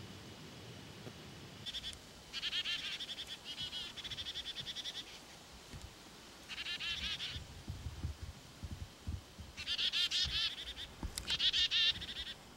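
Black-capped chickadee giving its chick-a-dee-dee-dee call: several series of rapid, buzzy, evenly repeated 'dee' notes, each series lasting about a second, with short gaps between them.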